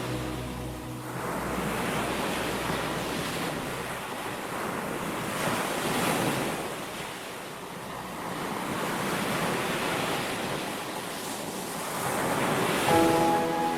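Ocean surf: waves breaking and washing ashore, the sound rising and falling in about three slow swells.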